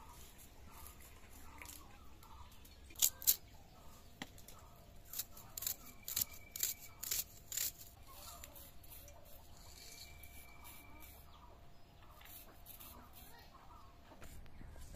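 Red onions being sliced against a boti blade: two crisp cutting strokes, then a quick run of several more. Faint bird chirps repeat in the background.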